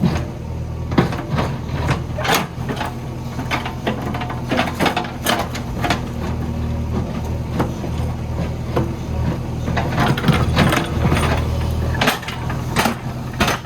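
JCB backhoe loader's diesel engine running steadily under load, with irregular sharp knocks and scrapes of rock against the steel bucket as it digs.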